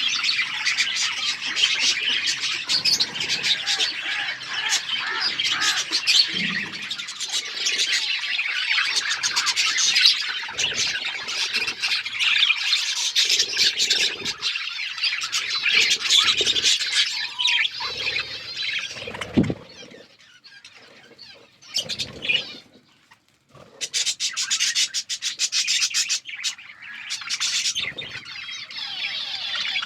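A flock of budgerigars chirping and chattering, many calls overlapping, with a lull of a few seconds about two-thirds of the way through before the chatter resumes.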